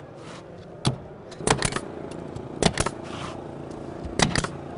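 Pneumatic nailer firing nails into stair skirt trim, with sharp shots in quick groups: one, then three in fast succession, then two pairs.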